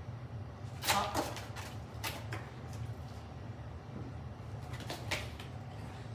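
Hiccups: brief sudden hiccup sounds about a second in (a quick double), again just after two seconds and near five seconds, over a steady low hum.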